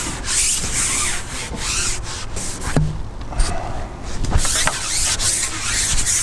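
Fishing pole being slid out through the hands, a run of uneven rubbing and scraping with several light knocks.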